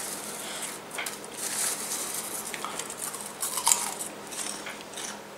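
Popcorn being chewed with irregular crisp crunches, along with rustling of popcorn as a hand rummages in the bowl for another handful.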